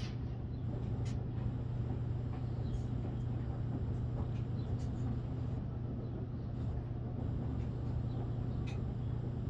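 A steady low mechanical hum at an even level, with a few faint clicks and taps over it.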